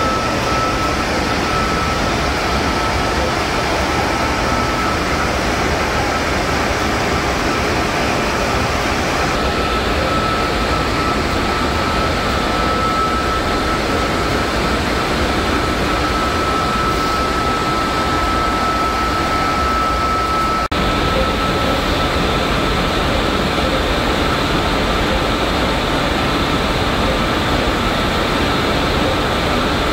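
Loud, steady machinery noise of a container ship's engine room under way, many machines blending into one dense din. A steady high whine runs through it until about two-thirds of the way in, and the sound drops out for an instant about 20 seconds in.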